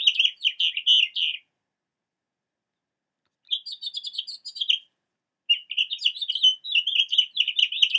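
House finch song: a quick, warbling run of high notes, in three phrases with short silent gaps between them.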